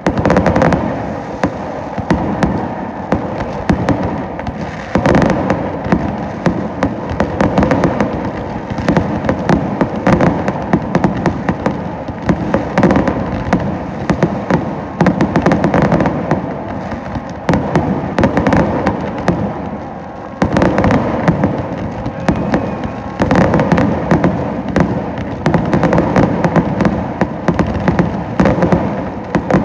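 Fireworks display: a dense, continuous run of bangs and crackles.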